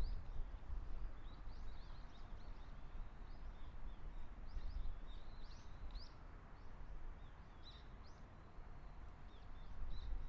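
Small birds chirping and twittering, many short high calls in quick succession, over a steady low rumble of background noise.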